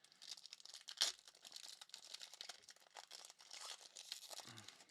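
Plastic packaging crinkling and crackling as trading cards and their wrappers are handled, with one sharper snap about a second in.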